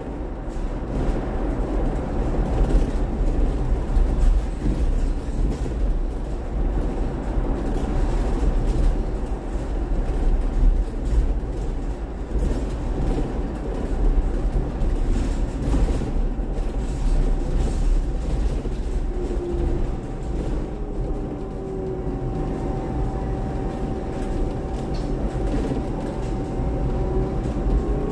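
Cabin noise on the upper deck of a new MCV-bodied Volvo BZL battery-electric double-decker bus on the move: a steady low road rumble with frequent knocks and rattles, and a steady high hum. In the latter part a motor whine glides up and down in pitch.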